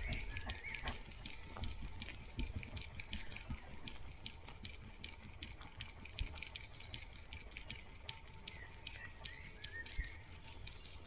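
A dog's paws pattering on a gravel forest track as it walks, a quick run of small crunching steps, over a low rumble of movement on the dog-mounted microphone. A few faint chirps come in near the end.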